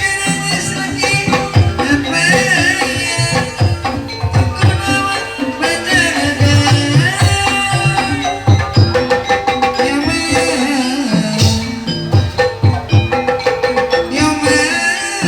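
Kuda lumping ensemble music: hand drums beating a fast, driving rhythm over ringing tuned metal percussion, with a wavering melody line above.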